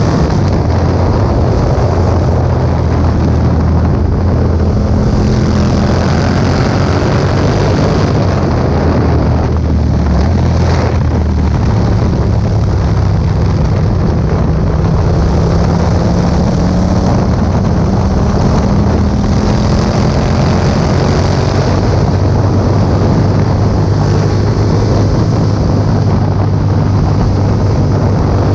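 2018 Yamaha MT-07's parallel-twin engine through an Akrapovič exhaust, running under way with wind noise on the microphone. The engine note shifts in pitch a few times and climbs slowly through the middle stretch.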